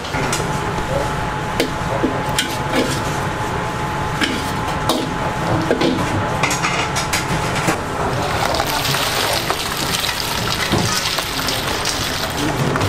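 Busy restaurant kitchen noise: metal utensils and bowls clattering and clinking over a steady hiss. The hiss grows brighter about two-thirds of the way through.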